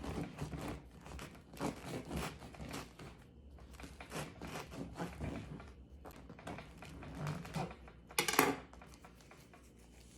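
Crisp crust of a baked sourdough loaf rasping and crackling in a series of short strokes as it is cut open with a knife. The loudest stroke comes about eight seconds in.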